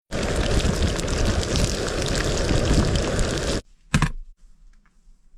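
Strong wind buffeting the microphone, a loud, steady rush with heavy rumble that cuts off suddenly after about three and a half seconds, followed by one short burst and a few faint ticks.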